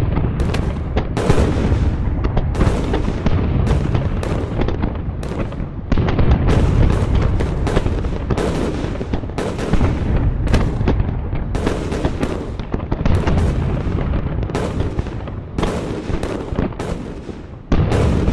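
Battle sound effect of modern warfare: a dense, rapid run of shots and explosions over a continuous low rumble, with a heavy new blast about six seconds in and another near the end.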